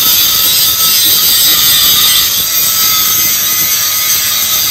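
Angle grinder with a thin cut-off disc cutting into the weld seam of a steel pipe joint. It makes a steady, high-pitched grinding sound, cutting out a weld defect found on a radiographic test so it can be repaired.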